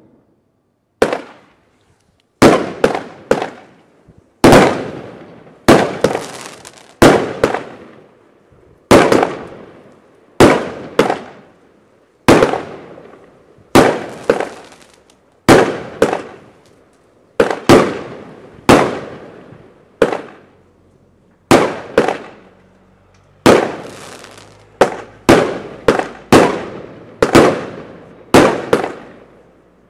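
Bonfireworks 'Earthquake' firework firing shot after shot: sharp bangs roughly once a second, some in quick pairs or triples, each with a fading tail, starting about a second in.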